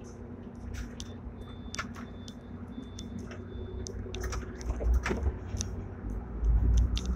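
Hong Kong tram No. 120, a rebuilt fifth-generation double-decker tram, running, heard from inside its lower deck: a steady low rumble and hum with frequent sharp clicks and rattles, the rumble swelling about five seconds in and again near the end.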